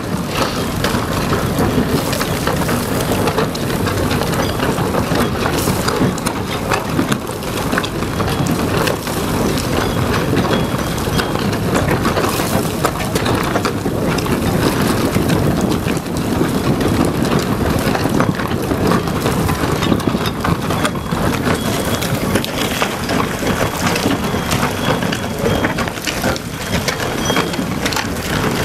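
Herrenknecht tunnel boring machine's cutting wheel grinding through the rock just behind the portal wall: a steady rumbling with constant crackling as the shotcrete begins to crumble. The hiss of a water jet spraying the wall mixes in.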